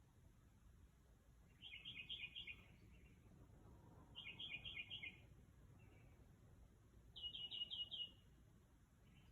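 A bird singing: three short phrases of rapidly repeated high notes, each about a second long, a couple of seconds apart, with a brief softer note between the second and third.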